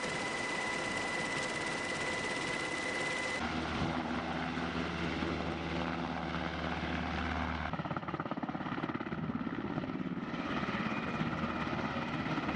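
CH-47 Chinook helicopter running, its rotor and turbine noise steady with a high whine at first. The sound changes abruptly about three and a half seconds in to a heavy low rumble, and again near eight seconds.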